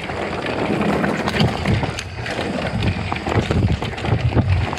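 Santa Cruz Heckler electric mountain bike ridden over a rocky trail: tyres rolling over loose stones with frequent small knocks and rattles from the bike, under wind buffeting the microphone.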